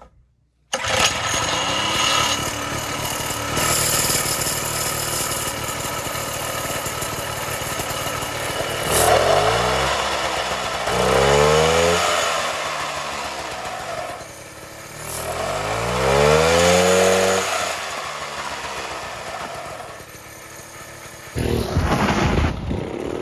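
141cc two-stroke snowblower engine in a mini bike running. It is revved twice, the pitch rising and falling each time. The sound jumps louder near the end as the bike rides off.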